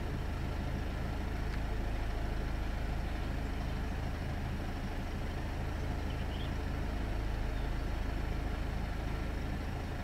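Car engine idling steadily, heard from inside the car's cabin.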